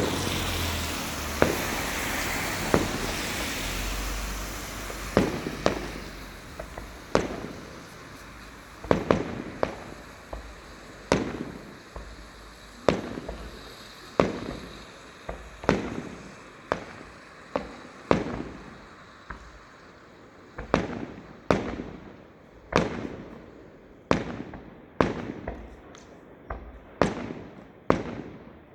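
Aerial fireworks shells bursting overhead: a long series of sharp booms, each trailing off in an echo, about one a second. A broad rushing noise under the first few bangs fades away after about five seconds.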